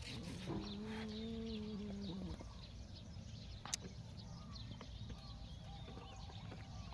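An animal gives one long, steady call lasting nearly two seconds, then a single sharp click comes a little past the middle, with faint high chirps in the background.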